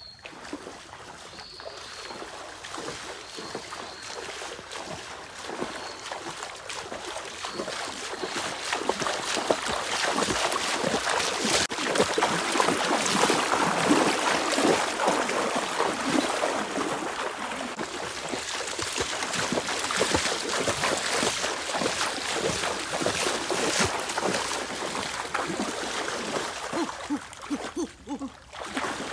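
Bare feet wading and splashing through a shallow stream: an irregular run of splashes that grows louder about eight seconds in and drops away briefly near the end.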